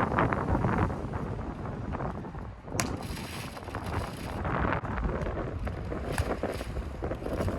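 Strong wind buffeting the microphone, an uneven rumble and rush, with a sharp tap about three seconds in.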